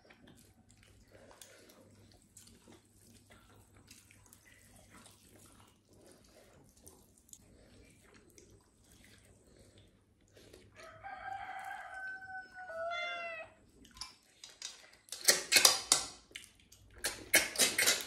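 Loud sucking slurps as snails are sucked out of their shells, in two quick clusters near the end. Before that there is only faint eating by hand, and a rooster crows once midway.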